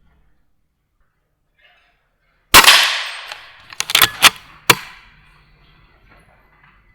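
A single shot from a Weihrauch HW100 .22 pre-charged air rifle, a sharp crack that trails off over about a second. It is followed by a quick run of four or five sharp metallic clicks, the side lever being cycled to chamber the next pellet.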